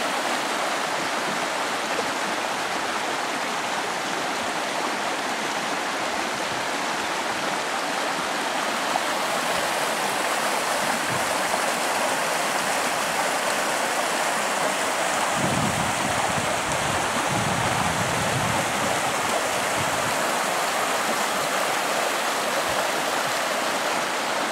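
Rapids of a rain-swollen mountain river rushing over stones: a steady, loud hiss of white water. A low rumble joins in for a few seconds about two thirds of the way through.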